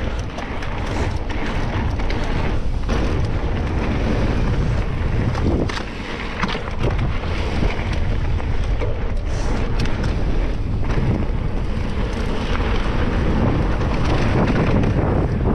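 Wind rushing over the microphone and the rumble of mountain bike tyres on a rough trail, with frequent quick clicks and rattles from the bike jolting over the ground.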